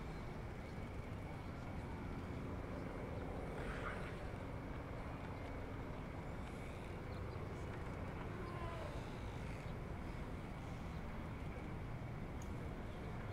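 Steady low background rumble of a harbour marina, with a faint brief higher sound about four seconds in.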